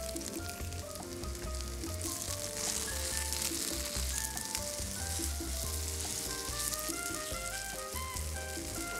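Potato cheese pancakes sizzling steadily as they fry in a little hot oil in a frying pan, with background music and a steady bass beat over the top.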